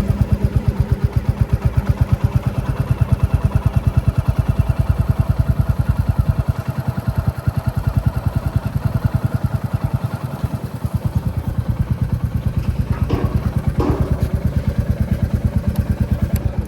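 Royal Enfield Classic 350's air-cooled single-cylinder engine running with its even, pulsing thump, plus a few brief knocks near the end.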